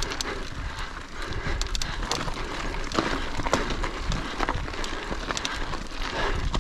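Mountain bike riding over a rough, stony trail: the tyres crunch over stones while the bike gives frequent irregular clicks and rattles.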